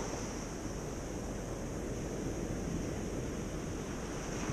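Small waves breaking and washing up a sandy beach, with wind on the microphone and a steady high-pitched hiss over it.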